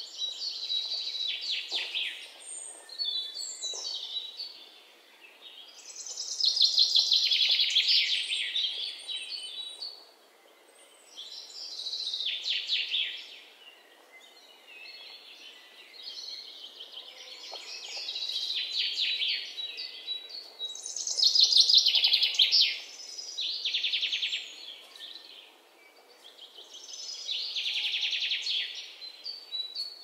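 Songbird singing in woodland: a run of song phrases, each two to three seconds long and made of rapid repeated notes, coming back every few seconds over a faint background hush.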